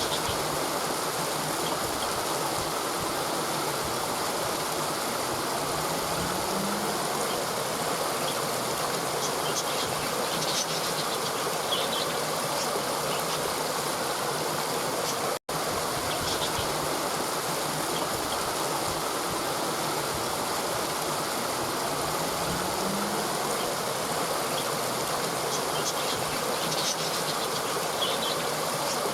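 Mountain river water rushing steadily over rocks. It cuts out for an instant about halfway through.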